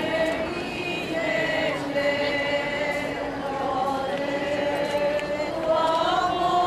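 A choir of voices singing slowly in long held notes.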